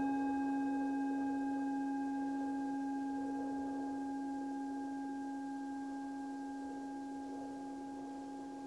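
Meditation singing bowl ringing on after a strike, one steady low-mid tone with fainter higher overtones, slowly fading. A soft wind sound runs underneath.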